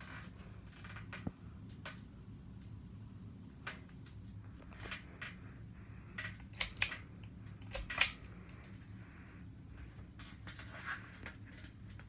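Harbor Breeze Whitestar ceiling fan motor running with its blade arms removed, a steady low hum, with scattered sharp metallic clicks and ticks that are loudest about six to eight seconds in.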